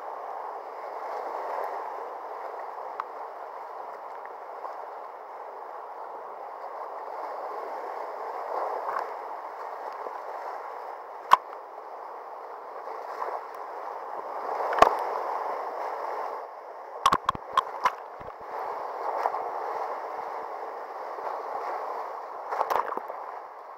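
Whitewater rapids rushing steadily around a kayak running them, with several sharp knocks: single ones about eleven and fifteen seconds in, a quick cluster a little later, and another near the end.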